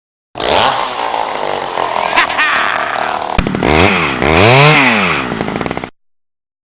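Two-stroke chainsaw engine running, then revved up and down twice. It cuts off abruptly, like a dropped-in sound clip.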